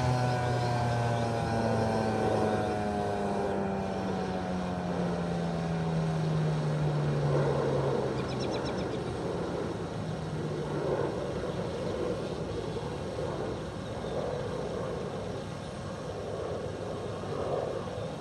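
Federal Signal 2001-SRN warning siren winding down at the end of its test cycle, its low tone falling steadily in pitch and fading out over the first several seconds. A steady rushing background noise remains after it.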